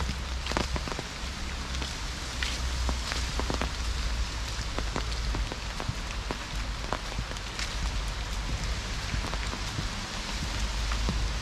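Rain falling on the forest and a wet wooden boardwalk: a steady hiss with many irregular ticks of drops, over a low rumble.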